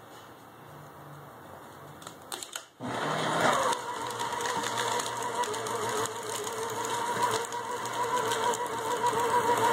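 Staples office paper shredder starting up about three seconds in and cutting through a comic book. A few clicks come as the comic enters the slot. Then the motor runs with a steady whine and the sound of paper being cut.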